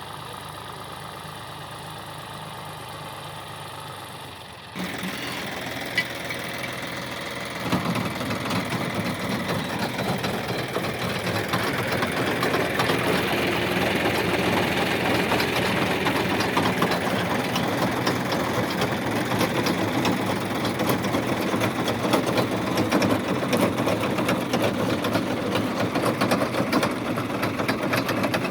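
Tractor engine running while a potato harvester's machinery clatters. The sound jumps louder about five seconds in, and from about eight seconds a dense, rapid rattle carries on.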